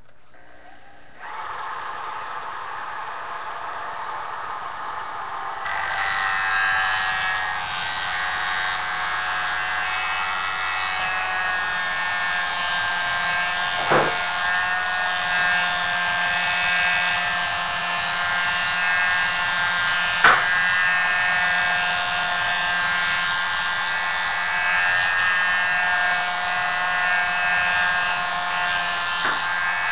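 JoolTool sharpening system running, its spinning abrasive disc giving a steady mechanical whine that starts about a second in and gets louder about six seconds in. Two sharp ticks stand out midway.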